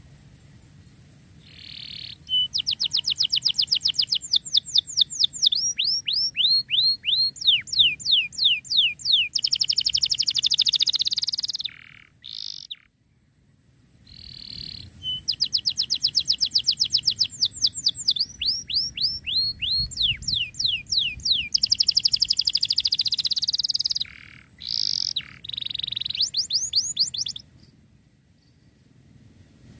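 Domestic canary singing, fast high trills of quickly falling notes in two long song phrases with a short pause between them.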